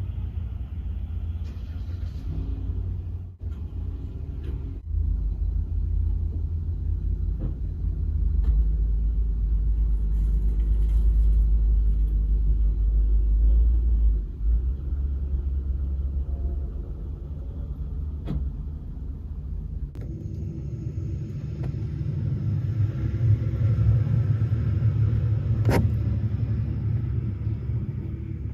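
Low, steady rumble of a motor vehicle running, engine and road noise, with a few sharp clicks. About twenty seconds in the rumble eases and a higher, louder engine hum takes over.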